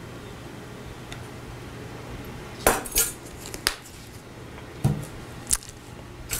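A metal measuring spoon and a small vanilla extract bottle clinking and tapping as vanilla is measured out and the bottle is set down on the table: a handful of sharp clinks starting about two and a half seconds in.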